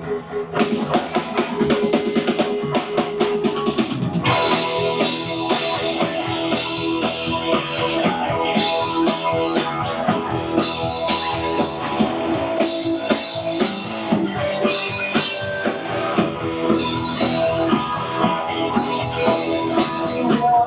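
Live rock band playing without vocals: drum kit keeping a steady beat under guitar, with the full band coming in louder and fuller about four seconds in.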